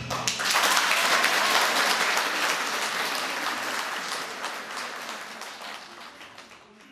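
Audience applauding, many hands clapping densely, fading away over the last few seconds.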